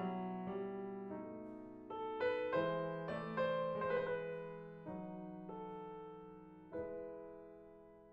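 Background piano music: a slow run of notes and chords, the last chord struck about seven seconds in and left to die away.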